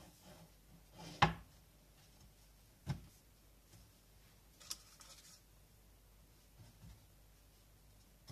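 Quiet handling of bread dough on a wooden board: a few light knocks against the wood, the sharpest about a second in and a duller one near three seconds, with soft rubbing of hands on dough between them.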